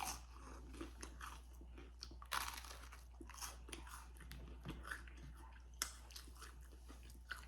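A person biting into and chewing crispy garlic bread: a sharp crunchy bite a little over two seconds in, then softer, faint chewing crunches.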